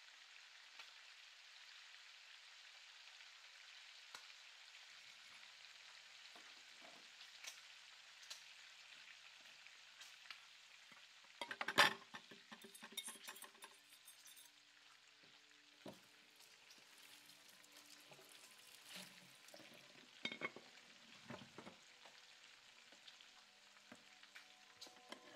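Food sizzling as it fries in a pan, with a utensil stirring and knocking against the pan now and then. The loudest clatter comes just before halfway.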